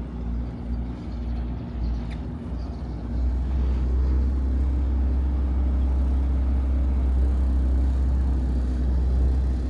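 A motorboat's engine running with a steady low drone. It is uneven for the first few seconds, then settles and gets a little louder about three seconds in.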